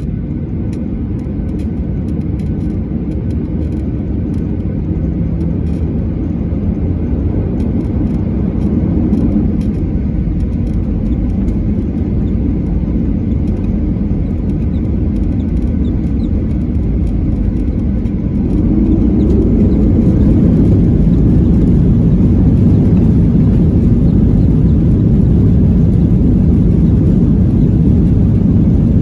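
Jet airliner cabin noise: a steady low rumble of engines and airflow heard from inside the cabin, growing louder about two-thirds of the way through and holding at the higher level.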